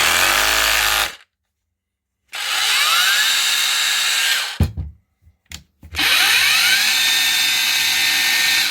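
Cordless SDS-plus rotary hammer, a copy of the DeWalt DCH243 with its front end off, run in three short bursts on the trigger. Each time its motor spins up with a rising whine, runs at a steady pitch and stops. It is noisy.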